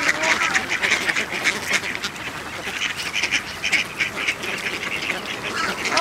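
A flock of ducks quacking, many short calls overlapping into a dense, continuous chatter that eases slightly midway and picks up again near the end.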